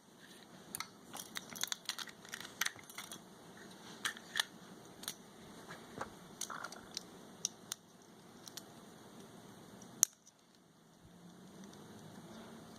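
Glock pistol parts being handled during disassembly: a run of small, faint clicks and taps, then one sharper click about ten seconds in.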